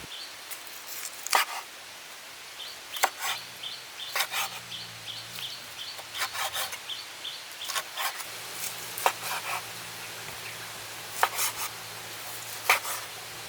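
Knife work on a wooden cutting board during food preparation: irregular sharp knocks with some scraping in between.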